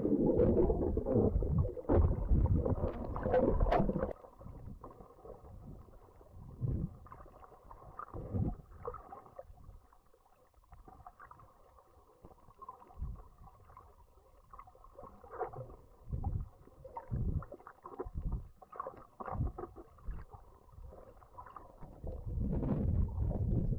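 Muffled water sloshing and bumping heard through an underwater camera's waterproof housing. It is louder for the first few seconds and again near the end, with scattered soft thumps and a faint steady hum in between.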